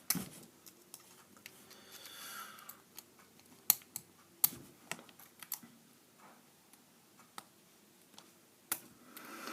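Lock pick and tension wrench working in a Master No. 3 laminated padlock: scattered small metal clicks and ticks, the loudest few in the middle and near the end.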